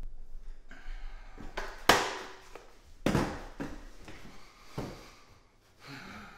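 A person moving about and sitting down in a small room: shuffling, rustling and a few knocks and thumps, the loudest about two seconds in.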